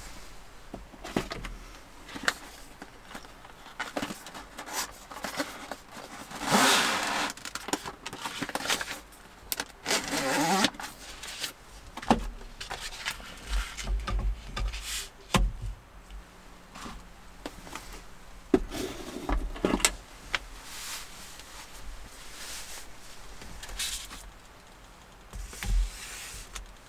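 Handling sounds at a wooden table: a thin plastic sheet crinkling as it is peeled apart and laid over a wooden cutting board, with scattered knocks and clicks of the board and knife on the tabletop. The loudest crinkling comes twice, about six and ten seconds in.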